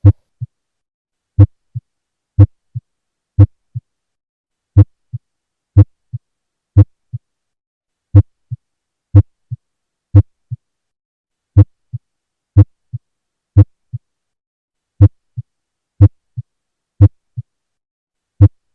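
Heartbeat heard through a stethoscope, with a loud first heart sound (S1). Each beat is a strong low thud followed about a third of a second later by a much softer second sound, repeating at about one beat a second.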